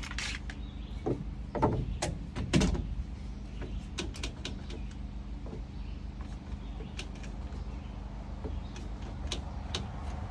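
Wooden deck lumber being handled: a few knocks and scrapes in the first three seconds, then scattered light clicks, over a steady low hum.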